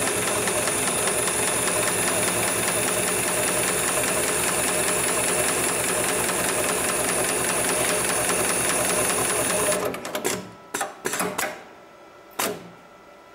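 HIGHTEX 7273 CNC automatic pattern sewing machine stitching a diamond pattern onto heavy webbing at a steady high speed. About ten seconds in the stitching stops abruptly at the end of the sewing cycle, and a few short, sharp clacks follow as the machine's mechanisms reset.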